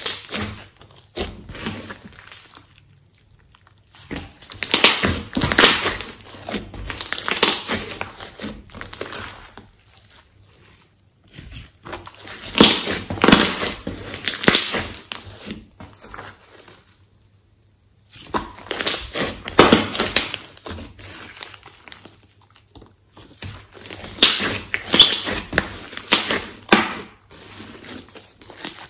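Hands squeezing, kneading and stretching a large mass of glossy slime mixed with clay, giving dense runs of sticky pops and clicks. The sound comes in bouts of several seconds with short quiet pauses between them as the grip changes.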